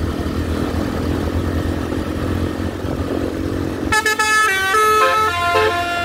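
Double-decker tour bus pulling past with its engine running, then about four seconds in its telolet musical horn starts playing a tune of held notes stepping up and down in pitch.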